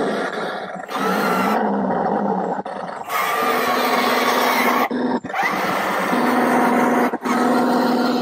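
Engine sound effect from a 1:6 scale RC M5 Stuart tank's onboard speaker as it drives, a coarse rumble that cuts out briefly several times, with a steady hum joining it in the second half.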